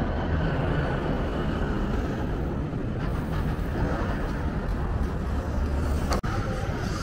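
Street ambience dominated by a steady low rumble of road traffic. The sound drops out for an instant about six seconds in.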